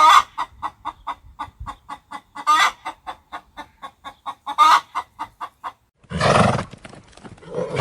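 Chickens clucking: a quick run of short clucks, about four a second, broken by three louder cackles. About six seconds in, a louder, lower animal call cuts in.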